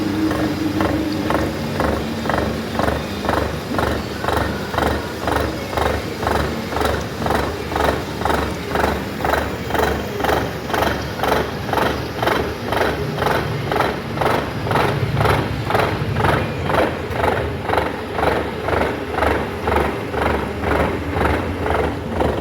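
Machine tool cutting grooves into a ship's starter gear, with an even, regular clatter of about two strokes a second.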